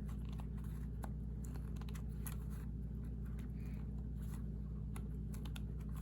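Scattered faint metallic clicks and scrapes of an old chisel prying up the small metal wick-retaining tabs of a kerosene heater, one after another, over a steady low hum.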